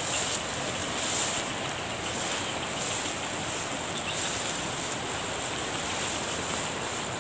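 A steady high-pitched insect chorus that swells and fades slightly, over rustling footsteps through tall grass.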